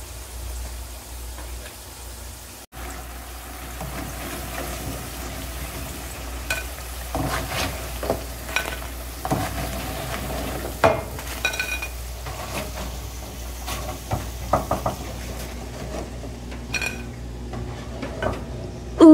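Potato chunks sizzling as they fry in oil in a nonstick skillet, with a spatula scraping and knocking against the pan several times as the potatoes are stirred and lifted out onto a plate.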